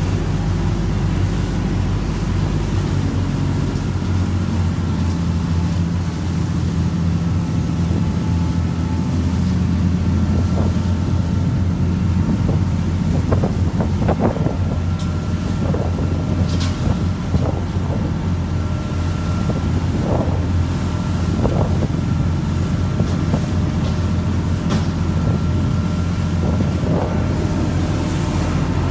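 Lobster boat's inboard engine running steadily under way, a constant low hum, with some wind on the microphone. Scattered short knocks sound over it every few seconds.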